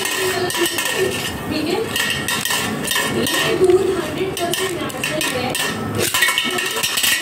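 A Beyblade spinning top whirring inside a stainless steel plate, its tip grinding and clinking on the metal so that the plate rings steadily. There is a sharper knock about six seconds in as a hand picks the top up.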